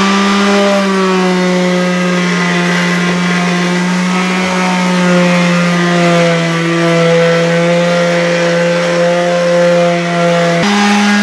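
Corded electric orbital hand sander with 200-grit paper running steadily against a truck's painted steel door sill, its motor holding one steady pitch as it scuffs the paint and takes the rust bubbles down toward bare metal.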